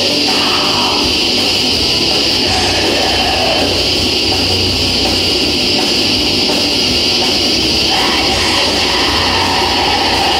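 Black metal band playing live: distorted electric guitars and drums as a dense, steady wall of sound.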